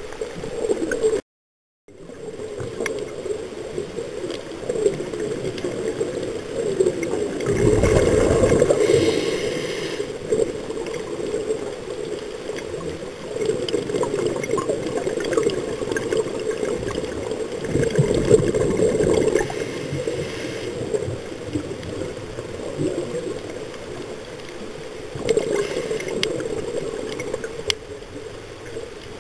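Scuba regulator exhaust bubbles gurgling underwater, swelling every few seconds with each exhaled breath. The sound drops out completely for a moment about a second in.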